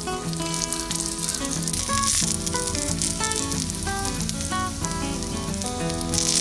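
Asparagus spears sizzling steadily in olive oil on a small iron griddle over a gas burner, with background music playing.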